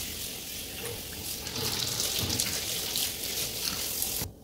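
Water running from a kitchen faucet into a stainless steel sink as it is rinsed, a steady hiss that cuts off suddenly near the end when the tap is turned off.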